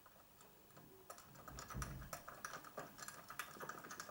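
Faint rapid, irregular clicking and tapping of a bolt and a plastic bracket on the back of a SelfSat flat satellite dish being tightened by hand. It starts about a second in, with a dull thump near the middle.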